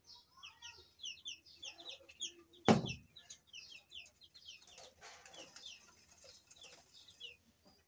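Chicks cheeping over and over in short, falling high peeps. About two and a half seconds in, a single loud thud as a pot of soil is dumped onto the floor.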